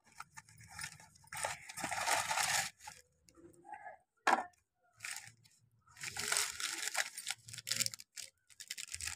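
Plastic biscuit wrappers being torn open and crinkled by hand, in two longer crackling bursts, one about a second in and one about six seconds in, with small rustles between.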